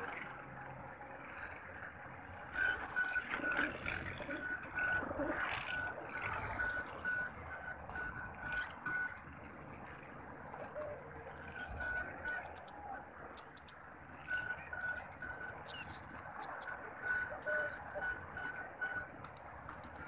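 A high, single-pitched beep repeated about twice a second in long runs that stop and restart, over faint outdoor rustling and scattered light clicks.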